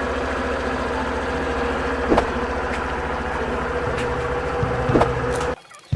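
Suzuki Burgman Street EX 125 scooter's single-cylinder engine idling steadily, with a vibration buzz from its loose body panel, the fault being fixed. A couple of short clicks come through, and the engine sound cuts off suddenly near the end.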